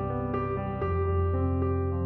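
Background music: soft piano or electric-piano notes changing every half second or so over a held low bass.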